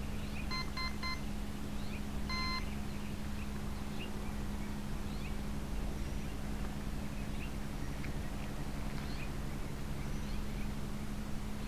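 The RC flying wing's electronic speed controller beeping as its battery is connected: three quick beeps, then a single longer beep about a second and a half later, the usual arming signal. Faint bird chirps and a steady low hum underneath.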